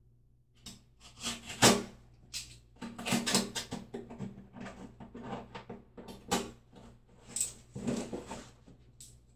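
Wallpaper being handled and worked into place by hand: irregular rustling and scraping of the paper, with a sharp knock or scrape under two seconds in and further spells of rustling around three, six and eight seconds in.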